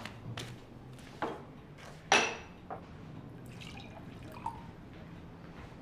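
A few scattered knocks and clinks in a room. The loudest is a sharp clink with a brief ring about two seconds in.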